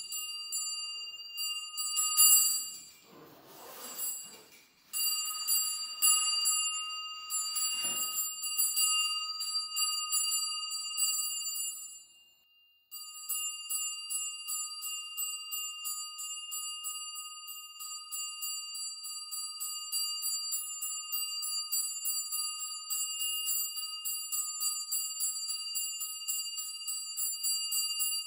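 A small metal bell shaken rapidly and continuously, a fast run of strikes on the same few ringing pitches, rung to call up spirits. It breaks off for about a second near the middle, then starts again.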